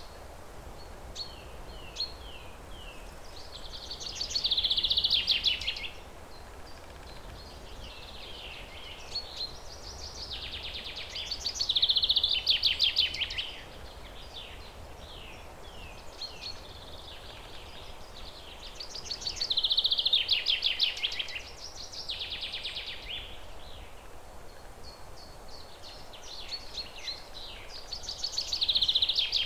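A songbird in a forest singing the same rapid, high trilling phrase four times, about every eight seconds, with short chirps between phrases, over a steady low background noise.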